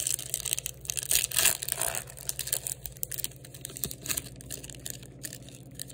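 Topps Chrome baseball cards being handled and slid against one another while going through a pack: light scraping and crinkling with scattered soft clicks.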